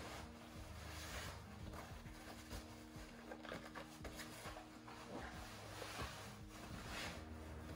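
Obi sash fabric rustling in a series of soft brushes as it is wrapped and pulled around the body, over faint background music with sustained tones.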